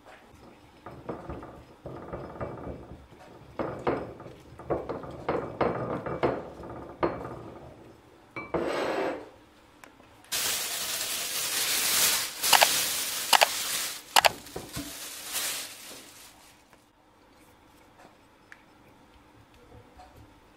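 Marinade being made in a ceramic bowl: liquid added to red pepper powder and stirred with a silicone spatula, irregular scraping strokes and light clinks against the bowl. About ten seconds in comes a louder, even hiss lasting some five seconds, with a few sharp clicks, before it goes quiet.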